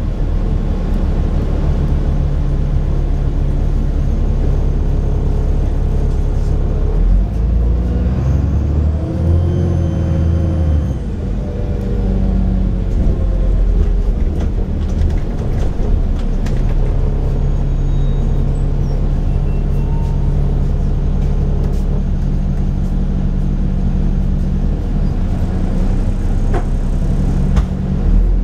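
Cummins Euro 4 diesel engine of an Enviro 400 double-decker bus running steadily under way. About eight seconds in, a high turbocharger whistle rises and falls over a few seconds as the engine pulls harder, then the engine settles back to a steady drone.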